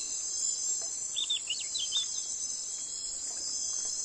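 Steady high-pitched insect chorus, with a few short bird chirps between about one and two seconds in.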